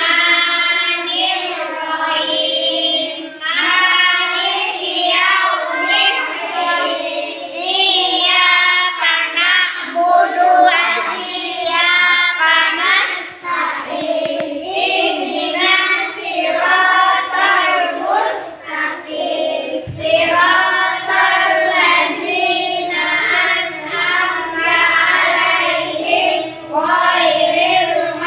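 A group of young children recites aloud together in a sing-song unison chant, as in a group recitation during Dhuha prayer practice.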